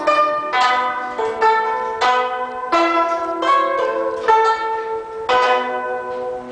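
Guzheng ensemble playing: plucked notes and chords with long ringing decays, and a last strong chord about five seconds in that is left to ring and fade.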